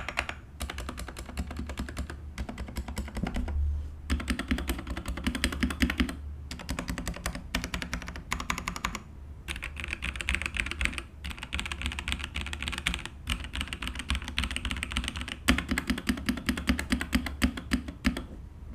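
FreeWolf K87 mechanical keyboard being typed on fast: runs of rapid key clicks and clacks, broken by short pauses every couple of seconds. A steady low hum sits underneath.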